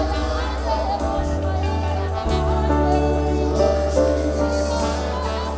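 Gospel worship music: a band with steady bass notes and cymbals under a singer's wavering, drawn-out vocal line.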